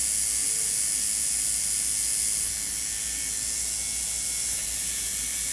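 Electric tattoo machine buzzing steadily under a loud, even hiss, dropping slightly in level about two and a half seconds in.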